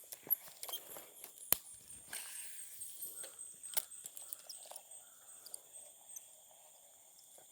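Scattered rustles and sharp clicks, thinning out after about four seconds, over a steady high insect drone.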